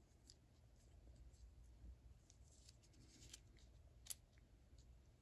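Near silence with a few faint light clicks and taps, one sharper click about four seconds in: small steel ratchet parts, the pawls and their posts, being handled.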